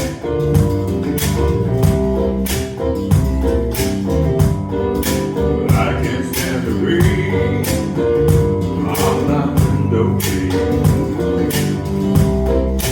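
Live band music: a guitar playing chords over a steady beat of percussive hits, with a short gliding melody line rising and falling about halfway through.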